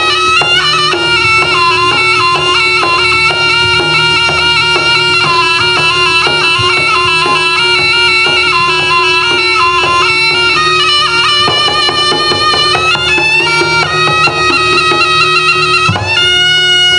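Live jaranan gamelan music: a shrill reed trumpet (slompret) plays a wavering melody over a steady held tone, with drum strokes about twice a second and busier drumming near the end.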